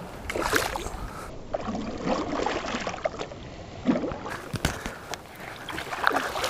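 Hooked largemouth bass thrashing at the surface beside the boat, irregular splashing and water sloshing as it is played in on the line.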